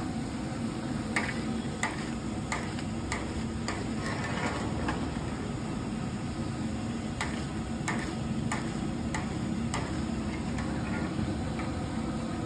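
Long metal slotted ladle knocking against a large iron kadhai while potato slices are stirred in hot oil. The knocks come in two runs of regular clicks, about one every half second or so. Underneath is the steady noise of the deep frying.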